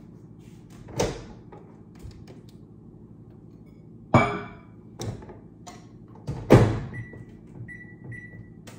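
Microwave oven being loaded and set: several knocks and thunks as the door is opened, a bowl is put in and the door is shut, the loudest about two-thirds of the way in, then four short keypad beeps near the end.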